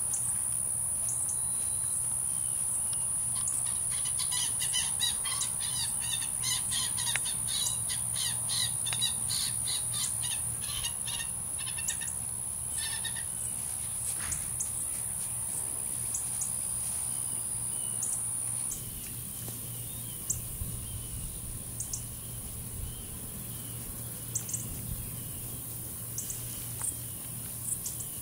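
Outdoor ambience of birds singing and a steady high-pitched insect drone, with a run of quick repeated bird chirps in the first half and short ticks and rustles in the grass in the second half.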